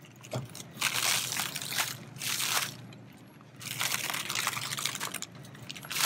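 Plastic bags of frozen fish rustling and crinkling in several irregular bursts as they are handled in a freezer bin.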